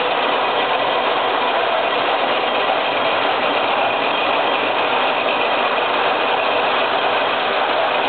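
Concept HD 50 heavy-duty industrial paper shredder's motor and cutters running steadily as folded paper is fed into the slot and shredded. The noise is loud and even throughout, with no starts or stops.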